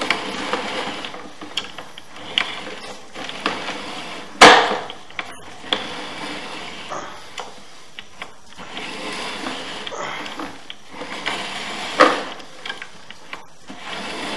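Sewer inspection camera being worked through a drain line: irregular clicking, rattling and scraping, with a sharp knock about four and a half seconds in and another about twelve seconds in.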